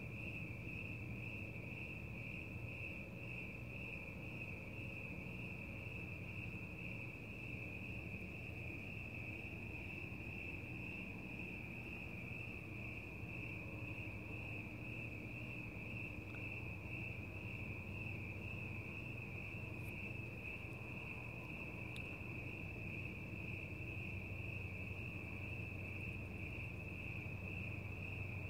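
Chorus of crickets chirping steadily, one unbroken high-pitched trill.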